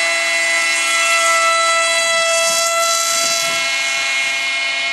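Small RC model aircraft engine running at high revs: a loud, steady, high-pitched whine.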